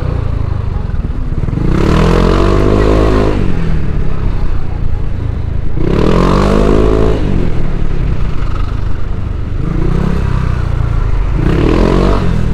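Bored-up Yamaha NMAX scooter's single-cylinder engine pulling away in stop-and-go traffic, its pitch rising with the throttle four times: about two seconds in, about six seconds in, and twice near the end.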